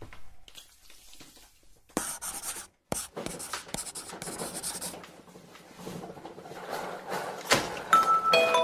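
A marker pen scratching out letters in runs of quick strokes, with a short break about three seconds in. Near the end there is a sharp click, then bell-like mallet notes begin.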